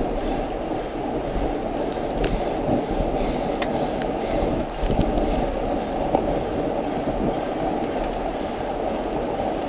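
Steady, muffled rush of wind and wet-road noise on a camera mounted on a racing bicycle riding at speed through heavy rain, with scattered sharp ticks.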